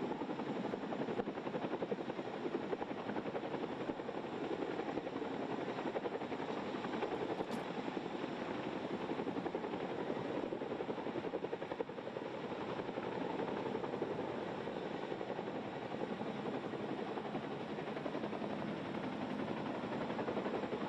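Chinook tandem-rotor helicopter flying overhead, its rotor blades beating in a steady, rapid chop.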